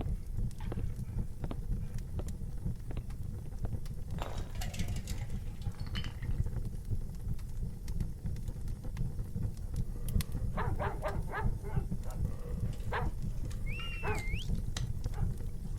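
Tavern ambience bed: a steady low rumble with scattered clicks and knocks. A quick run of clicks comes about two-thirds of the way through, and a short squeak that rises and falls comes near the end.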